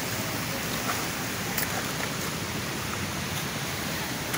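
A small mountain creek running steadily over rocks in a little cascade.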